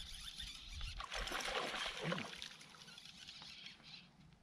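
Soft water and tackle noise as a hooked bass is played on a bent rod from a boat, with a few short voice sounds about one and two seconds in; the sound dies away toward the end.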